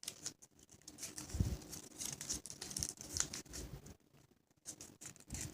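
A sheet of paper being folded and creased by hand, crinkling and rustling in irregular bursts, with a soft low thump about a second and a half in.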